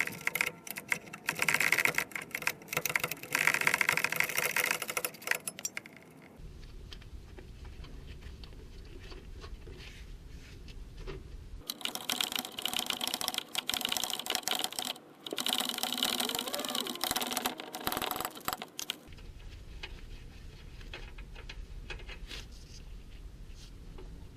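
A wrench works the 18mm bolts of a Chevrolet C1500's idler arm, making fast repeated mechanical rattling. It comes in two bursts of about six seconds each, with a low steady hum between them.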